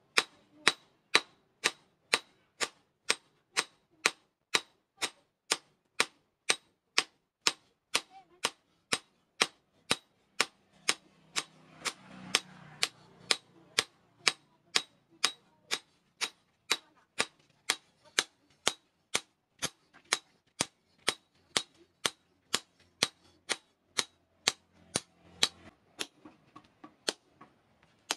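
Hand hammer forging a steel rebar knife blade on a steel post anvil: sharp metal-on-metal blows at a steady rhythm of about two a second, stopping about a second before the end.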